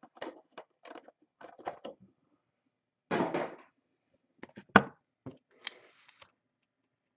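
Cardboard trading-card boxes being handled: scattered light taps and rustles, a louder rustle about three seconds in, a sharp knock about five seconds in and a brief scraping rustle just after.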